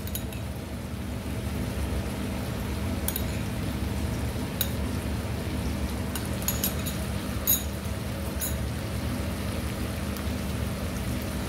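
Low steady hiss of a saucy stir-fry cooking in a wok over a gas flame, with a metal spoon clinking sharply against a small ceramic bowl several times as basil leaves are scraped into the pan.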